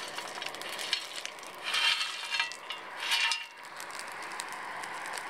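Lumps of fairly fine bituminous coal sliding off a sheet-metal plate and rattling onto a forge fire in two pours, about two and three seconds in.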